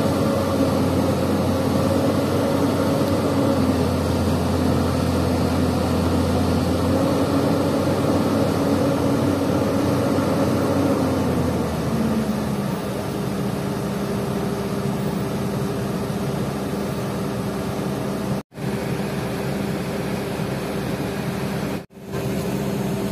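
Diesel engine of a Hyundai 220LC-7 crawler excavator running under load as it handles a concrete pipe, its note shifting as the hydraulics work. About halfway through the engine drops to a lower, steadier note.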